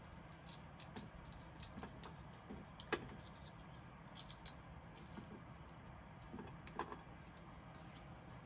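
Fresh usui peas being shelled by hand: scattered soft snaps of pods splitting and light clicks of peas dropping into a stainless steel mesh strainer, over a faint steady background.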